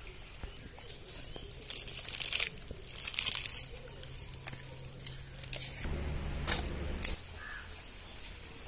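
Dry palm fronds and twigs crackling and rustling as a freshly lit wood fire catches, in irregular bursts with a few sharp snaps. A brief low rumble sounds a little past the middle.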